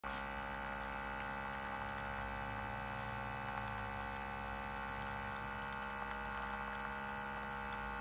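Outin Nano portable espresso machine's 20-bar pump running with a steady, even hum while it brews a shot of espresso.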